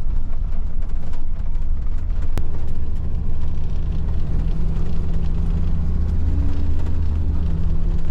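Vehicle engine running steadily, with a single sharp click about two and a half seconds in.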